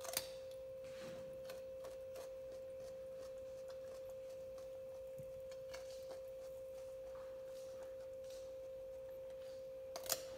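A macaque biting and chewing a raw carrot: sharp crunches right at the start and two more near the end, with faint chewing clicks between. A steady single-pitched hum of unseen source runs underneath throughout.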